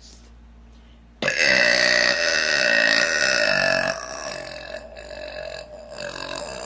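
A woman belching: one long, loud burp starts suddenly about a second in and holds for nearly three seconds, then trails off into a quieter, broken tail near the end.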